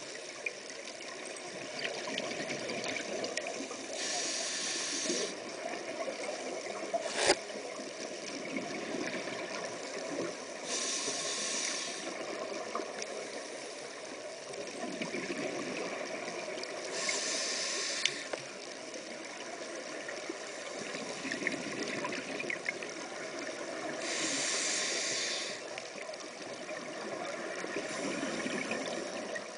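Scuba regulator breathing heard underwater through a camera housing: a rush of exhaled bubbles about every six or seven seconds, each lasting a second or two, over a steady water hiss. One sharp click about seven seconds in.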